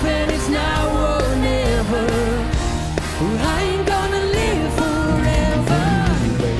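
A rock-pop song: a singer's voice holding and bending long notes over guitar, bass and drums.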